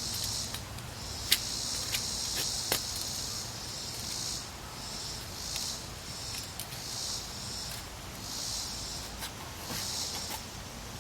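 Insects buzzing in a high chorus that swells and fades about every second and a half, with a few sharp clicks and taps in the first few seconds.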